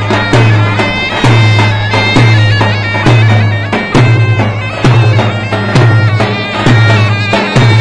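Turkish folk dance music: a reedy wind instrument playing a busy melody over a heavy bass drum beat that lands about once a second.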